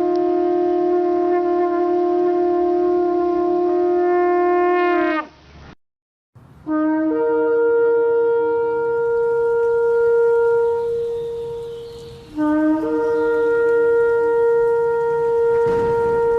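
Ritual horn blasts. One steady note is held for about five seconds and sags in pitch as it ends. After a short gap come two long blasts that each start on a low note and leap up to a higher held one, the two-note call of a ram's-horn shofar.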